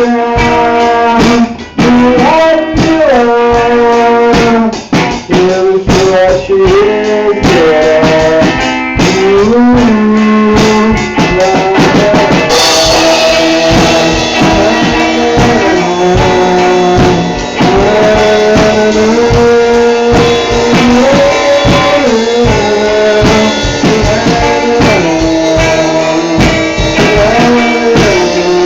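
Band music: a drum kit and guitar playing under a gliding lead melody line.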